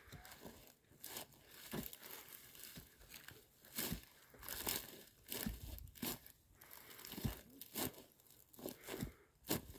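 Dry desert shrubs (booteh) being pulled up and broken by hand: brittle stems crackling and snapping with rustling brush, in irregular sharp cracks about once a second.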